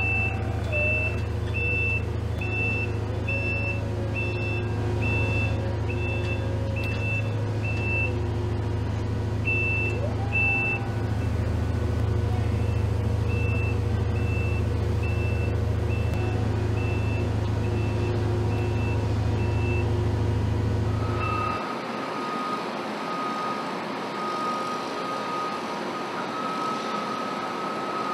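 Vehicle reversing alarm beeping a little under twice a second, with a couple of short breaks, over a steady low engine rumble. About 21 seconds in, the rumble and beeping cut off and a steady high tone continues over industrial background noise.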